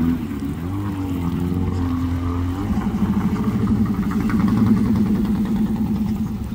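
An engine running, its note shifting up and down over the first second or so, then settling into a steady throbbing note from a little under three seconds in.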